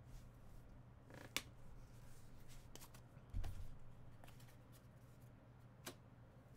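Faint handling of trading cards and a hard plastic card holder: a few light clicks and taps, with a soft low thump about three and a half seconds in.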